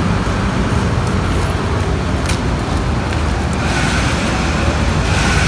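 Steady low rumble of road vehicles, with a faint high tone coming in about two-thirds of the way through.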